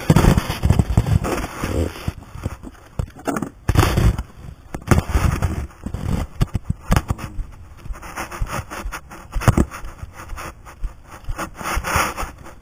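Irregular scraping, rubbing and sharp knocks of handling noise, as the recording phone is moved and fumbled in the hand.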